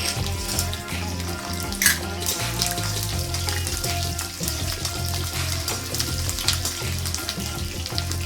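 Food sizzling and crackling as it fries in a pan, with one sharp click just under two seconds in, over background music with a steady bass line.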